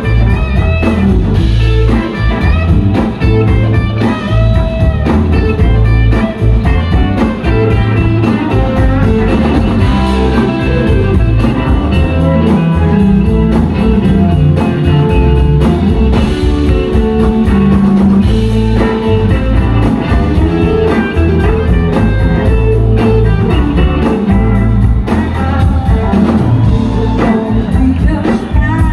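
Live blues-rock band playing loudly: electric guitar leading over drums and bass.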